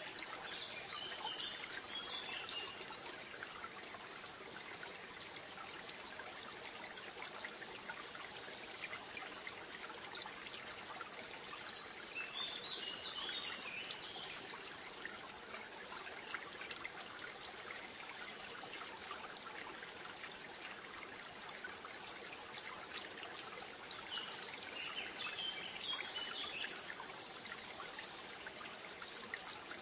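Water trickling steadily, with a bird's short chirping call three times, roughly ten to twelve seconds apart.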